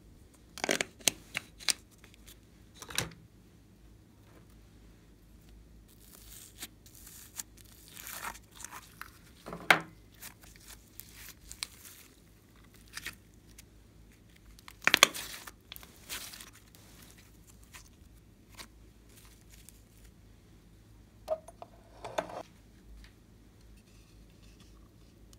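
Glossy glitter slime being stretched and handled by hand, making scattered crackling, tearing pops, with sharp clicks from plastic containers and jars. The sounds come in short clusters with quiet stretches between.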